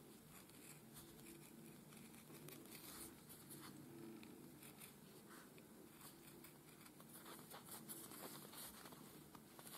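Faint snipping of scissors cutting through faux leather, a scatter of small ticks over a low steady hum.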